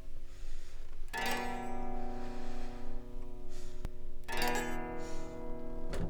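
Guitar chords, struck twice about three seconds apart, each left to ring out.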